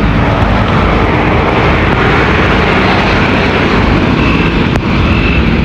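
A jet aircraft passing, a loud steady rushing noise that swells slightly in the middle. A short high beep repeats several times near the end.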